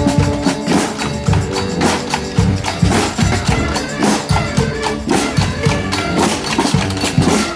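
Street brass band playing on the march: a busy, steady drum and percussion beat under held brass horn notes.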